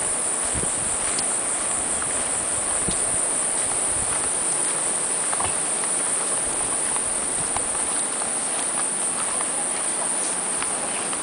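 Continuous high-pitched drone of jungle insects, with a few faint ticks and low thuds scattered through it.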